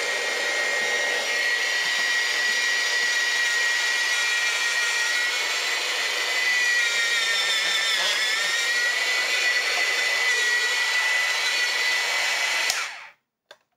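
Presto Salad Shooter's electric motor running with a steady high whine over a hiss while shredding romaine lettuce, the pitch dipping briefly about eight seconds in, then switching off near the end.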